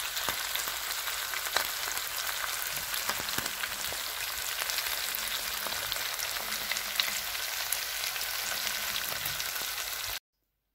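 Meat frying in hot oil in a pan: a steady sizzle full of small crackling pops, which cuts off suddenly near the end.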